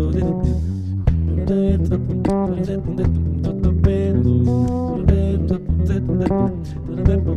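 Two bass guitars playing an instrumental duet: a steady low bass groove under plucked melody notes in a higher register, some of which bend in pitch.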